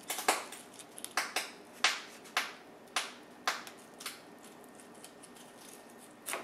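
Fillet knife slicing along the backbone of a Chinook salmon, the blade crunching and ticking against the bones in a series of short, crisp strokes about two a second, then one more near the end.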